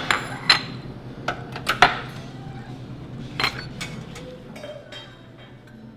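Café clatter: sharp clinks of cups, dishes and cutlery, several in quick succession in the first two seconds and two more about three and a half seconds in.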